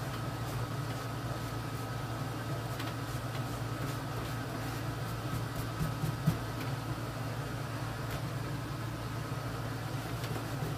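Steady mechanical hum and hiss, like a fan or air conditioner running, with a few faint light clicks and taps, one a little louder about six seconds in.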